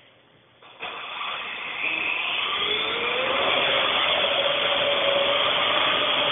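Parrot AR.Drone quadcopter's four rotors spinning up suddenly about a second in and running at maximum climb for a fast liftoff with a GoPro as payload. It is a loud, steady whirring whine that rises in pitch and then holds.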